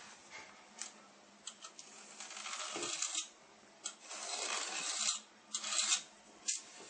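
Pencil drawing lines on a wall: three scratchy strokes of about a second each in the second half, with a few light taps between them.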